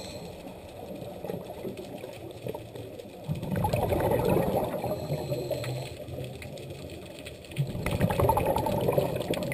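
Scuba regulator exhalation bubbling, heard through an underwater camera housing: two long exhaled breaths, one about three seconds in and another near the end.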